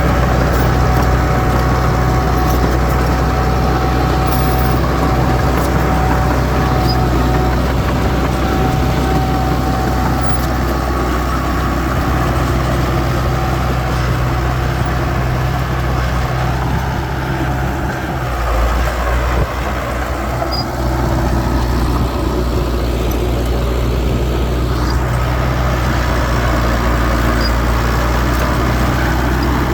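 Diesel engine of heavy earthmoving machinery running steadily, with a brief change in its note about two-thirds of the way through.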